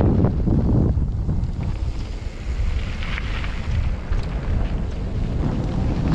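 Wind buffeting a helmet-mounted camera's microphone during a mountain bike descent on a dirt singletrack: a steady low rumble with a few faint ticks and rattles.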